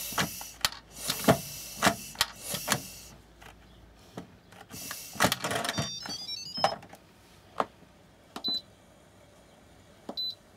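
Instant Pot pressure cooker lid scraping and clicking as it is twisted shut, twice setting off a short electronic jingle of stepped beeps. Near the end come two single short beeps from the cooker's control panel as it is set to manual pressure cooking.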